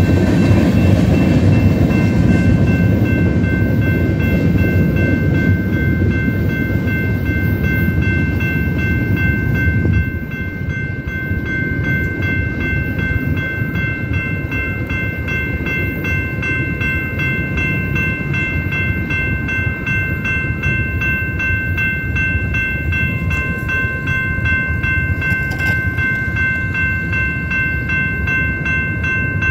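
Freight train of covered hopper cars rolling through a grade crossing, a heavy rumble that drops off about ten seconds in as the end of the train clears. Grade crossing warning bells ring steadily over it and keep ringing after the train has passed.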